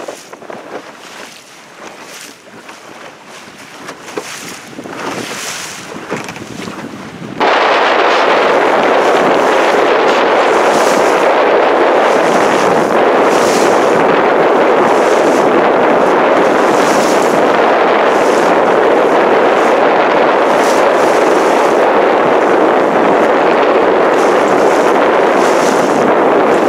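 Wind buffeting the microphone on a sailboat, gusty and moderate at first, then abruptly much louder about seven seconds in as a steady rush with a hiss that swells every second or two.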